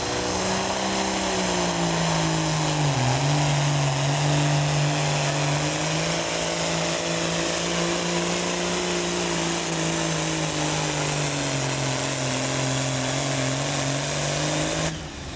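Allis-Chalmers D21 super farm pulling tractor's diesel engine running hard at high revs under load during a pull, with a brief dip in pitch about three seconds in. The sound cuts off suddenly just before the end.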